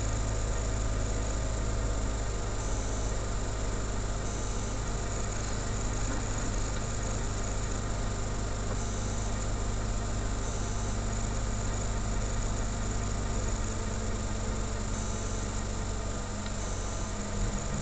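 Car engine idling steadily while stopped in traffic, a low even hum heard from inside the cabin through a dashcam microphone, with a steady hiss over it.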